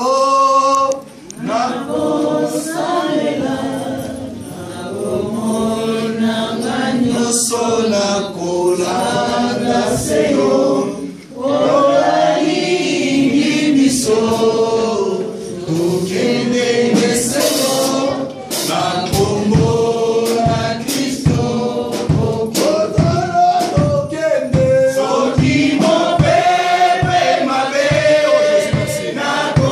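Congregation singing a gospel worship song together, led by a man singing into a microphone. A steady beat of short strokes joins the singing about two-thirds of the way through.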